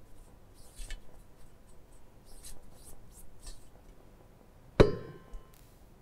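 Dry soil grains scraping and rustling out of a metal sieve into the metal pan on the balance, in a run of short strokes, then one loud metallic clank with brief ringing about five seconds in as a steel sieve or pan is set down.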